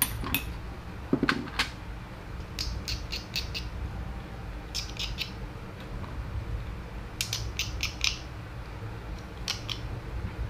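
Small sharp clicks and snips, in quick groups of three to five repeated several times, as moulding flashing is trimmed off small plastic battery end plates. A low steady hum lies underneath.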